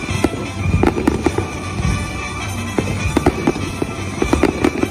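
Fireworks display: aerial shells and comets going off in rapid pops, bangs and crackle, in clusters, over music playing underneath.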